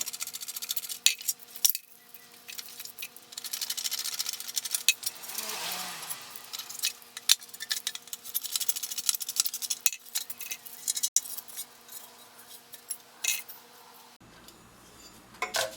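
Small steel parts and hand tools clinking and clattering as the band saw table's rusted screws, nuts and quadrant are taken apart, with many separate sharp clicks.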